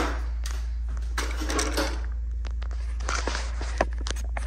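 Scattered light clicks, knocks and rustles of handling over a steady low hum.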